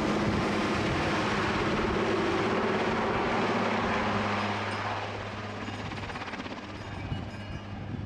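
Super Puma military helicopter's rotor and turbine engines running loud overhead. The sound grows fainter from about halfway through.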